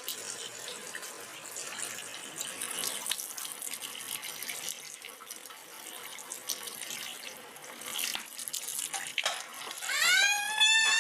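Tap water running steadily into a sink. Near the end a small child lets out a loud, high-pitched wail.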